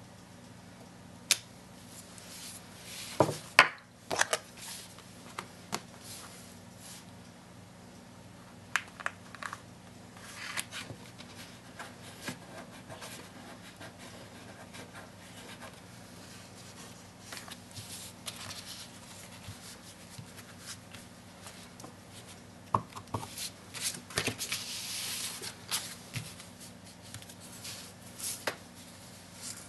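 Hands working a clear acrylic stamp block and a plastic imaging sheet on paper: scattered taps and knocks as the block is set down and pressed, with rubbing and rustling of the sheet. The loudest knocks come a few seconds in and again about three-quarters of the way through, over a low steady hum.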